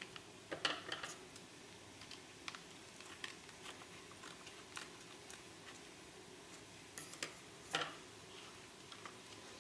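Scissors snipping and a plastic spice sachet crinkling as it is cut open and squeezed out: faint scattered clicks and crackles, a little louder about a second in and again near the end.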